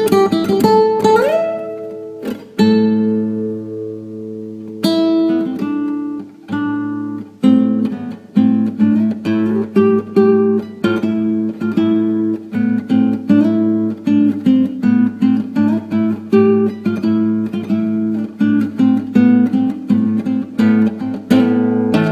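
Acoustic guitar playing an instrumental piece. It opens with sliding notes and two long ringing chords, then settles into a steady run of quick plucked notes, several a second, over a sustained low bass note.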